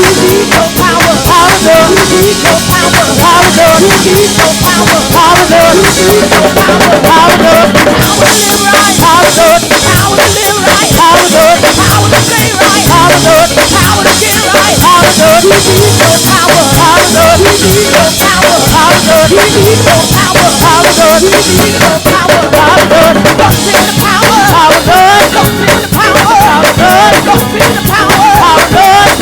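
Live gospel praise band playing a loud, up-tempo number, driven by a busy drum kit with rapid, steady strikes, with pitched instruments and voices over it.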